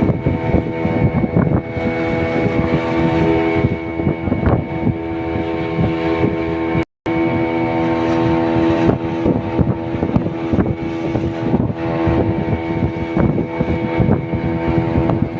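Outboard motor of a fiberglass longboat running steadily underway, with wind rushing over the microphone. The sound drops out briefly about seven seconds in.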